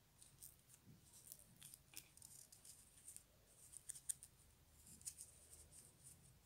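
Faint, irregular light clicks and scratches of thin wooden skewers used as knitting needles, tapping together and drawing baby yarn through the stitches.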